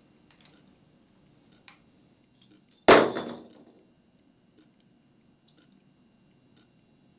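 A single loud metallic clatter about three seconds in, ringing away over about a second: a utility knife dropped onto a hard bathroom floor. A clock ticks faintly about once a second.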